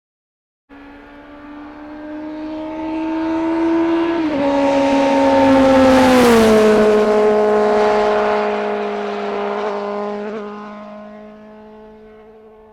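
A motor vehicle passing by: its engine's pitched note grows louder, drops in pitch as it goes past, then fades away.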